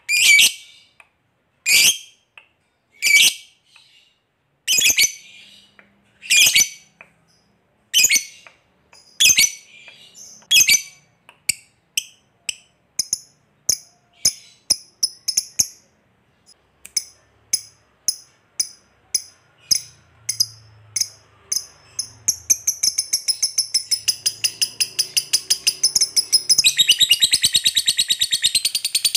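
A lovebird calling. Sharp, separate high calls come about a second and a half apart, then speed up into a quickening run of ticking calls (the 'koek ngetik'). This breaks into a long, very rapid continuous chatter near the end: the 'ngekek' that fanciers prize.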